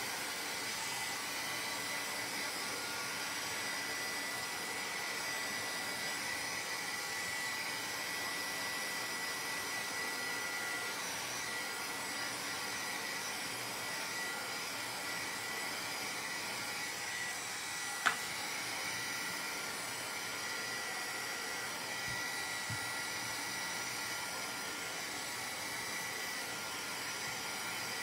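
Handheld embossing heat tool blowing steadily with a thin high whine, drying water-spritzed cardstock. A single short click about two-thirds of the way through.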